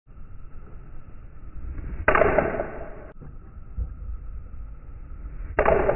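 Two full golf swings hitting balls off a hitting mat, about three and a half seconds apart: each a sharp crack of the club striking the ball, followed by about a second of rushing noise that fades.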